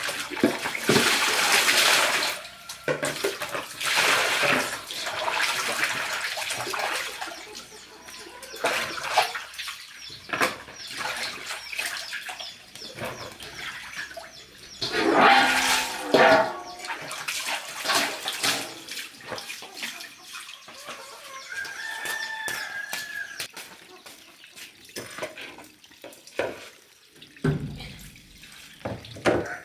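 Water splashing and sloshing in irregular bursts, loudest near the start and again about halfway through, with chickens calling now and then.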